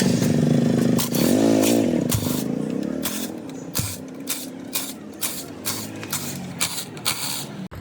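A motorcycle engine running and revving up and down for a few seconds, then a steady run of sharp knocks, about two a second.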